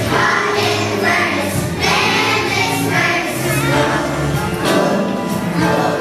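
A children's choir singing with musical accompaniment.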